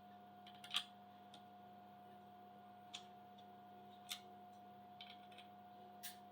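Faint scattered clicks and taps of small hardware and tools being handled during kit assembly, five or so spread over several seconds, over a steady low electrical hum.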